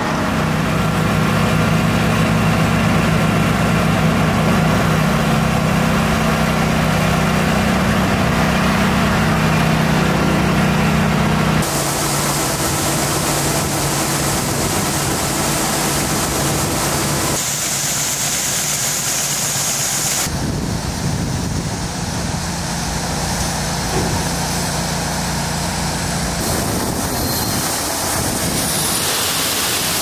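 Engine drone and a grain auger running while loading peas into a B-train grain trailer. The steady hum changes abruptly several times, about 12, 17, 20 and 26 seconds in.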